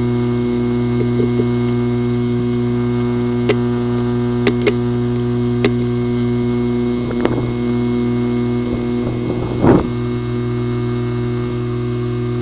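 A failing hard disk drive running with a steady hum and about half a dozen sharp clicks at irregular intervals, the loudest about ten seconds in. The clicking is a symptom of a possibly physically damaged disk assembly.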